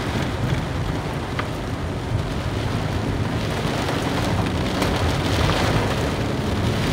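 Heavy rain falling on a moving car, heard from inside the cabin as a steady hiss over a low rumble of the car on the wet road.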